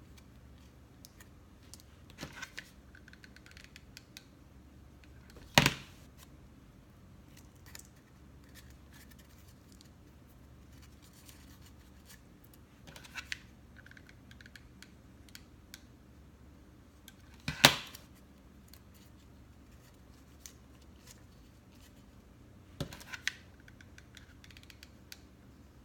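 Small handling clicks and knocks of craft work with a hot glue gun and rhinestone trim, spaced several seconds apart over a faint steady hum. Two sharper knocks stand out, about six and eighteen seconds in.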